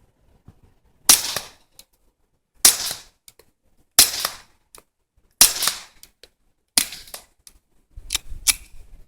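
Suppressed .22LR shots through a Southeast Arms V5 suppressor: five sharp reports fired at an even pace about a second and a half apart, each with a short ringing tail. Near the end come quieter reports in quicker succession.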